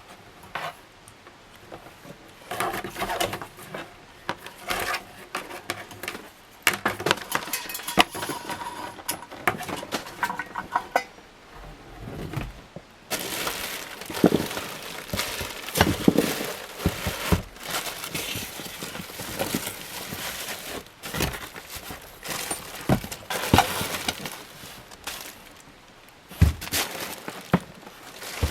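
Metal ceiling-fan parts and hardware clinking and clattering as they are handled and fitted together. About halfway through, a denser stretch of rustling joins the clinks.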